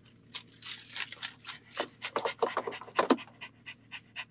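Irregular scratching and rustling, a quick run of short scrapes and clicks close to the microphone, from handling around the dog in the lap.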